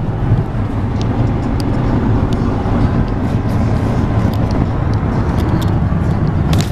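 Steady low rumble of road and engine noise inside the cabin of a moving car, with a few faint light clicks.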